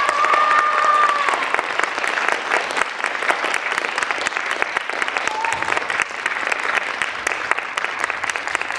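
Audience applauding, a dense patter of many hands clapping that thins and fades a little toward the end.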